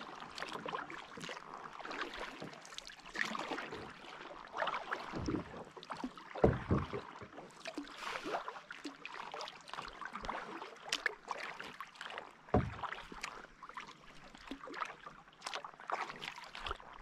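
Kayak paddles dipping and pulling through shallow lake water, with irregular splashing and dripping and a few dull low knocks.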